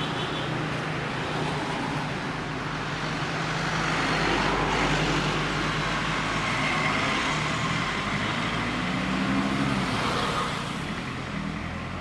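Mitsubishi Pajero's 4D56 turbo-diesel four-cylinder engine running on a test drive after an overhaul, under steady road and wind noise. The noise swells a few seconds in and eases off near the end.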